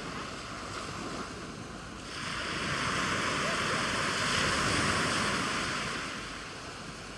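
Sea waves surging and washing in: a steady rush that swells about two seconds in and falls back near the end.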